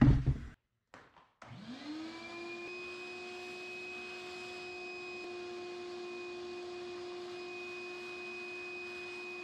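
Vacuum cleaner switched on, spinning up with a quick rising whine about a second and a half in, then running at a steady pitch while its hose sucks rat droppings out of a car's air cleaner housing.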